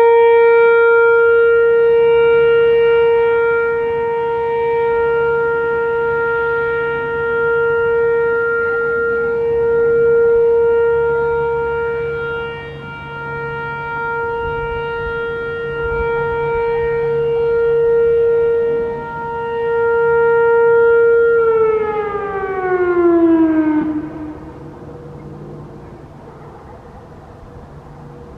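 Whelen Vortex R4 electronic outdoor warning siren sounding its steady alert tone, swelling and fading as the rotating head sweeps around. About 21 seconds in, the tone slides down in pitch for a couple of seconds and cuts off as the alert cycle ends.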